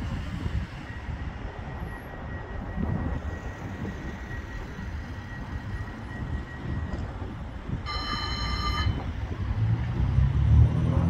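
CAF Urbos 100 tram standing at a stop with a steady low rumble. About eight seconds in, a short electronic warning tone sounds, typical of the doors closing. Near the end, a low hum builds and grows louder as the tram pulls away.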